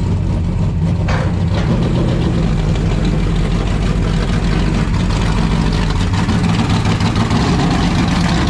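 A vehicle engine running steadily at a low, even speed.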